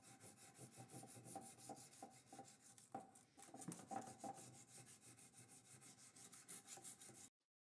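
Faint, steady strokes of a small hand file rubbing on the steel of a plane blade, dressing out the milled slot in the blade.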